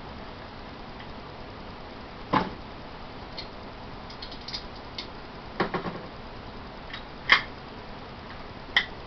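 Scattered sharp metallic clicks and knocks from hand tools and metal frame parts being handled during drilling and riveting work. There are about five loud ones, with fainter ticks between them, over a steady low hiss.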